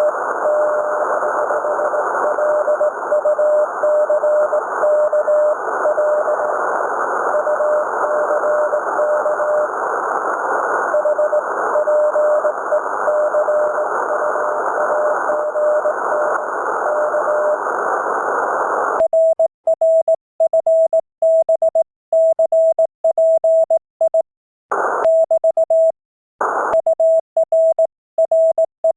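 Morse code (CW) from an amateur radio receiver: a single steady tone of about 650 Hz keyed on and off in dots and dashes over band hiss. About 19 seconds in, the hiss cuts out and the keyed tone carries on clean, with two short crackles of noise near the end.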